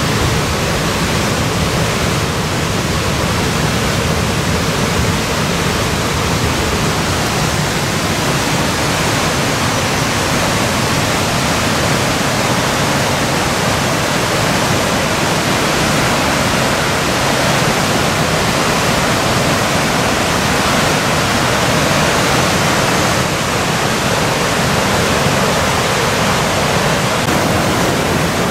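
Whitewater river rapids rushing, a loud, steady roar of water.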